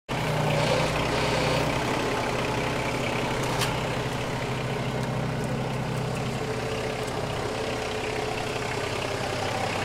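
Cat 301.7D mini excavator's diesel engine running steadily, its note shifting slightly about two seconds in and again near seven seconds as the machine works, with a single short click about three and a half seconds in.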